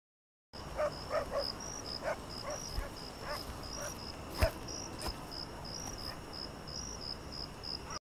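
Quiet night-time insect chirring, a high pulsing chirp that steps up and down a few times a second over a faint hiss, starting about half a second in. Scattered short softer calls sound beneath it, with one sharper click about halfway through.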